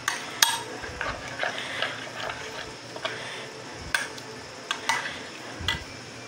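Metal spoon stirring a thick yogurt-and-spice marinade in a glass baking dish: soft wet scraping and squelching, with a few sharp clinks of the spoon against the glass, one near the start and three in the last two seconds.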